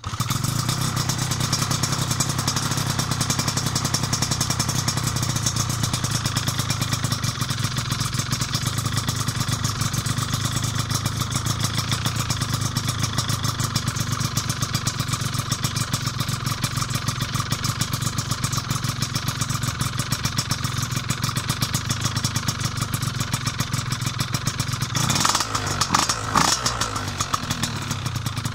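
Piaggio Zip SP scooter's two-stroke engine with a Malossi 172 cylinder kit, PM59 expansion exhaust and 35 mm Keihin PWK carburettor, catching from a cold start and running at a fast idle. The engine note rises briefly about 25 seconds in.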